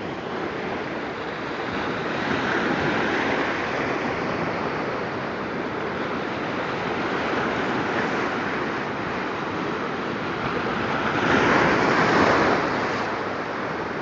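Sea waves splashing and washing over jagged ironshore limestone rock, a continuous rush of surf that swells as each wave comes in, loudest about eleven seconds in.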